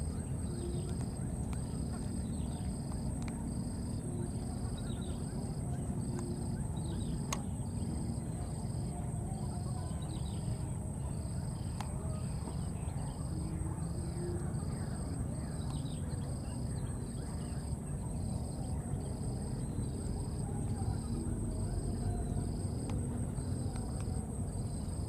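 Insects in the wild: a steady high-pitched buzz, with a regular chirp near it that repeats about once a second. Faint bird chirps sit over a steady low rumble.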